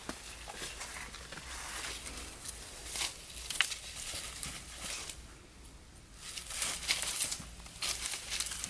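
Scuffing and rustling in dry leaves and dirt as feet, hands and a stick move about, with a few sharp clicks. It drops quieter for about a second past the middle.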